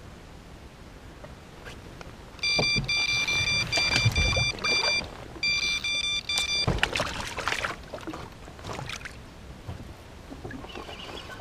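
Electronic carp bite alarm sounding a run: rapid, even high beeps, with a short break, signalling a fish taking the bait. About two-thirds of the way in the beeping stops as the rod is lifted, and handling knocks and rustling from the boat follow.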